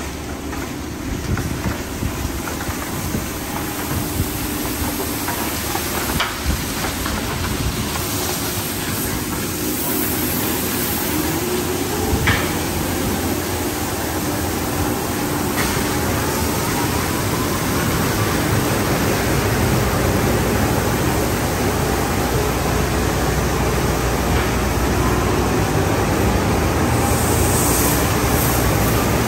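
Tunnel car wash at work: MCWW Crossover foam wrap brushes and lower rocker brushes spinning against a car amid water spray and machinery running, a steady wash of noise that grows gradually louder. A few sharp knocks sound along the way.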